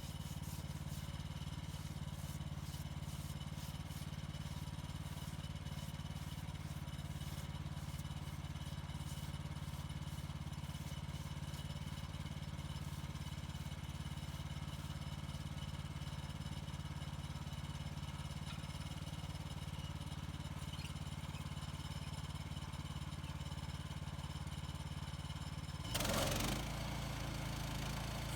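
Engine of an HM130 Max bandsaw sawmill running steadily at working speed. Near the end there is a brief louder clattering burst, and then the engine settles to a lower, steady idle.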